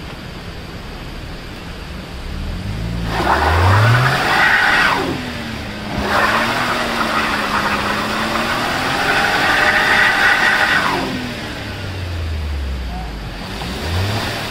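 Maruti Suzuki Alto 800's small three-cylinder petrol engine revved hard while the front wheels spin in deep mud: the car is stuck and being pushed. The revs climb about three seconds in, dip briefly, hold high until about eleven seconds, then fall back, with one short blip near the end.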